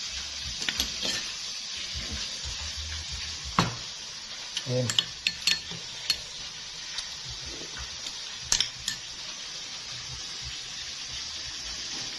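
Metal spoon stirring a dipping sauce in a small ceramic bowl, clinking against the bowl a few times, over a steady sizzling hiss of frying.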